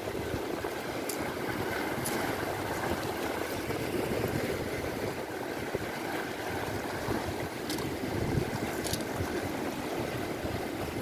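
Sea water washing against the jetty's rocks, a steady rushing with a few faint clicks.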